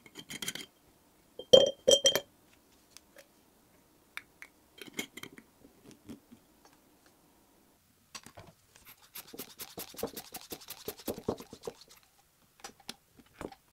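Hard objects, glass among them, being handled: scattered taps and clinks, the two loudest and ringing about a second and a half to two seconds in, then a quick rattling run of small clicks for a few seconds near the end.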